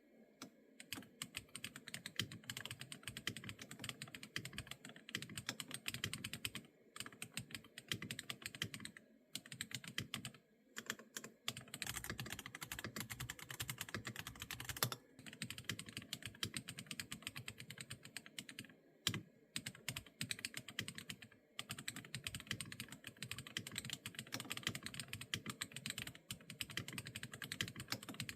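Typing on a Yunzii X75 Pro mechanical keyboard: quick runs of clacking keystrokes broken by short pauses, with a few louder single presses.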